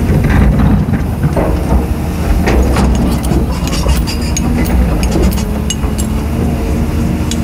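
Caterpillar 320D hydraulic excavator's diesel engine running steadily under load, with scattered clanks and knocks of rock against the steel bucket as it digs and lifts a boulder.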